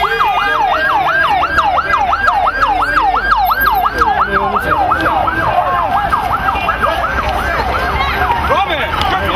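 A siren in a fast yelp, rising and falling about four times a second, growing weaker and less even after the middle, over shouting voices.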